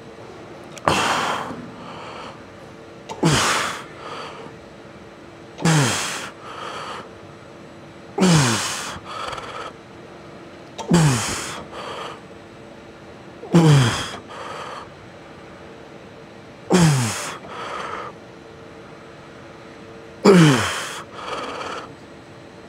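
A man's hard effort breathing through a set of reps: eight forceful exhaled grunts, each falling in pitch and followed by a shorter breath, the gaps between them slowly lengthening as the set goes on.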